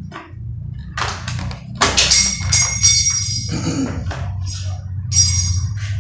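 Metal door-lock parts being handled: several knocks and clinks, with a bright ringing ping about two seconds in and another about five seconds in, over a steady low hum.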